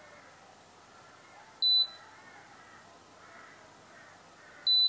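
Short high single beeps from an electric cooktop's touch controls as the heat is switched on and set to low: one about a second and a half in and another near the end.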